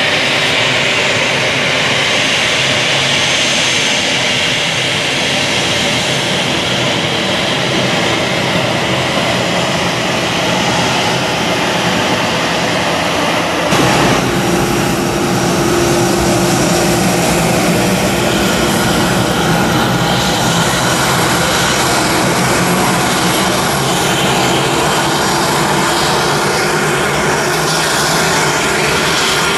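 Airbus A320 jet engines running steadily at low power as the airliner rolls along the runway, a continuous rush and whine. About halfway through the sound changes abruptly to a fuller, deeper rumble.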